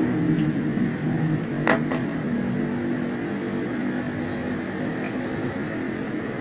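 An engine running steadily with a wavering low hum, and two sharp clicks about two seconds in.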